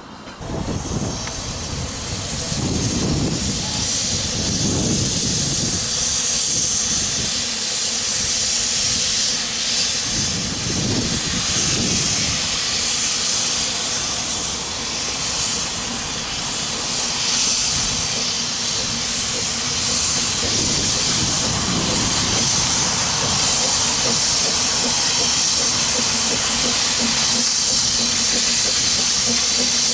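Narrow-gauge steam locomotive moving slowly with its cylinder drain cocks open, blowing out a loud, steady hiss of steam that starts suddenly at the outset, with a few low swells underneath.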